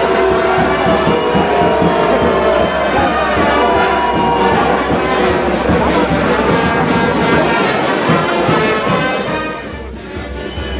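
Brass-band music playing over the dense crackling and popping of ground fireworks: sparkling fountains and spinning firework wheels. Both drop sharply in level near the end.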